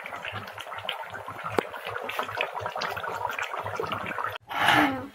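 Chicken curry boiling hard in a karai over a wood fire, a steady crackling bubble. Near the end comes a brief, louder rush of noise.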